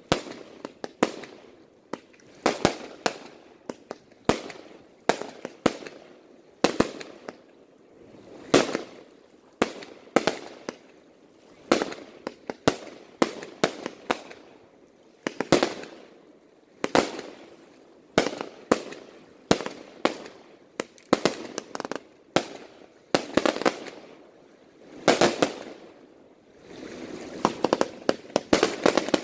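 Aerial fireworks going off in a rapid, irregular series of sharp bangs from launches and bursting shells, with stretches of denser crackling near the end.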